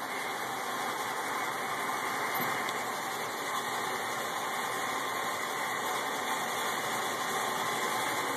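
Steady, even running noise of an inclined funicular tram car travelling along its track, with no knocks or changes in pitch.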